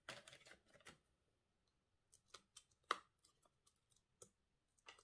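Faint handling of paper and foam adhesive dots while a cardstock label is stuck onto a paper box: a short rustle at the start, then scattered light clicks and taps, the sharpest about three seconds in.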